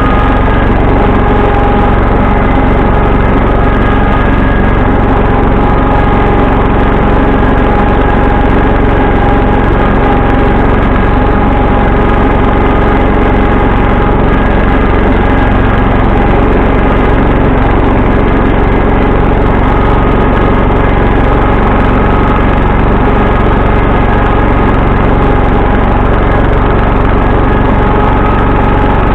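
Engine of a 1974 John Deere 140 H3 garden tractor running at a steady, unchanging speed.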